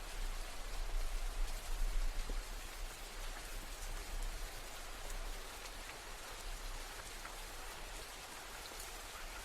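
Steady rain falling, with many fine drop ticks over an even hiss. A low rumble underneath is strongest in the first few seconds and then fades.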